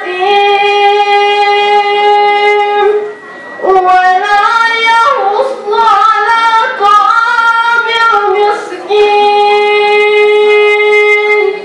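A high voice chanting Quranic recitation in melodic tajweed style. It holds a long, steady note, pauses briefly for breath, sings ornamented runs up and down, and ends on another long held note.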